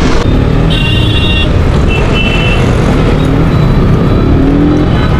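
Riding a KTM RC 125 single-cylinder motorcycle through city traffic: a steady rush of wind and engine and road rumble on the helmet mic. Two short high-pitched beeps, like vehicle horns, sound about a second in and again about two seconds in.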